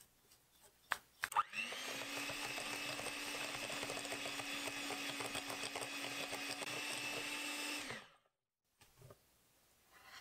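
A few sharp knocks, then an electric hand mixer starting up about a second and a half in and running steadily with its beaters in a glass bowl of thick cookie batter. It switches off near the end.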